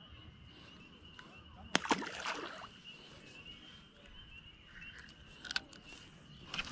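Faint outdoor ambience with a thin, steady high trill, broken by a few sharp knocks and a short splash about two seconds in as a small bass is slipped back into the lake water.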